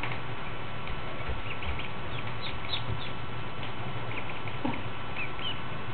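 Newly hatched Aylesbury ducklings peeping: many short, high chirps in scattered runs, over a steady background hiss and hum.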